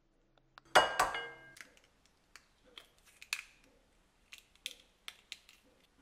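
An egg rapped on the rim of a glass mixing bowl: one sharp clink that rings briefly about a second in. Then small crackles and clicks as the shell is pried apart to separate the white from the yolk.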